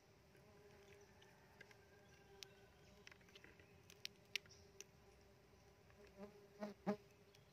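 Small stingless bees (Tetragonula laeviceps) buzzing steadily around their opened wooden hive box, with scattered light clicks of a knife working through the nest and two louder knocks near the end.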